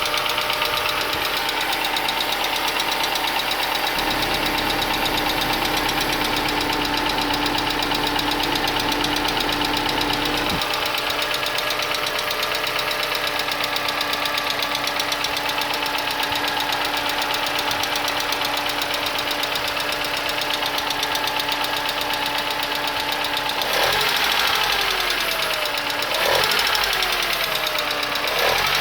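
Mercedes C180 W202 four-cylinder petrol engine idling with a fast, even ticking clatter, which the owner suspects is the hydraulic lifters. Near the end the engine is revved briefly three times, each rev rising and dropping back to idle.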